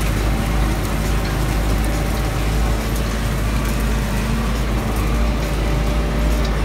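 Tractor engine running steadily under load, pulling a disk harrow through rough ground.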